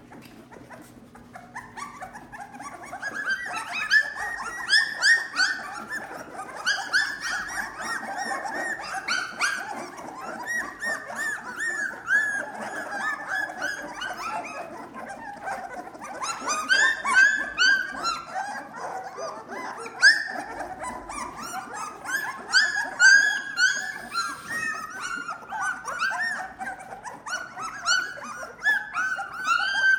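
A litter of young Lab-mix puppies crying, many short high-pitched squeaky cries overlapping one another, starting about two seconds in and going on without a break.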